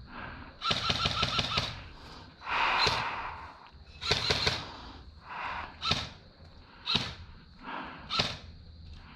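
Airsoft gun firing: a rapid full-auto burst of about a second, another short burst about four seconds in, then single shots spaced about a second apart.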